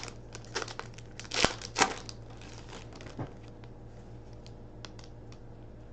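Hockey card pack wrapper being torn open and crinkled: a few short rustles and tears in the first two seconds and one more about three seconds in, then only faint light ticks.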